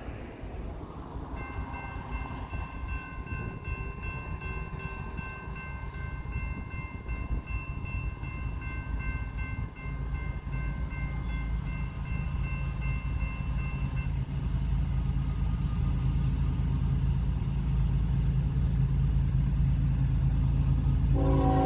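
Grade-crossing warning bell ringing steadily while the crossing gates come down, stopping a little past halfway. The low rumble of approaching diesel locomotives then grows steadily louder, and a locomotive horn sounds right at the end.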